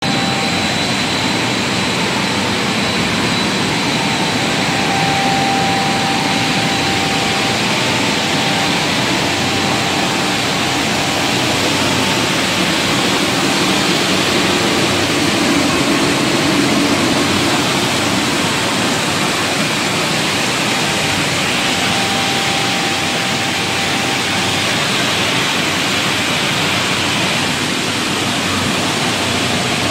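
Breakfast cereal processing line running: a steady, loud rush of machinery noise from its electric motors and conveyors, with a faint whine that comes and goes over it.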